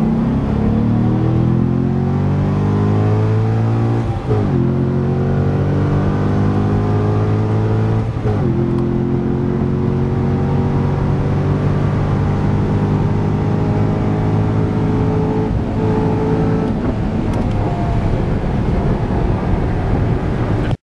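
Sports car engine at full throttle heard from inside the cabin, climbing in pitch through the gears with upshifts about four and eight seconds in. It then pulls long in a high gear and eases off near the end, where the sound cuts off abruptly.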